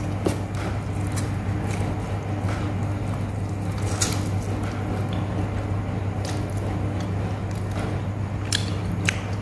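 Chewing a bite of martabak filled with chicken bone and meat, with scattered sharp crunches from the bones, which are still somewhat hard. A steady low hum runs underneath.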